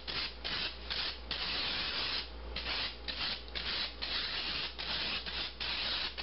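Handheld metal spray mister spraying water onto rising sourdough loaves in a quick run of short hissing puffs, with one longer spray of about a second starting about a second in. The misting softens the dough's drying outer skin so the loaves can expand.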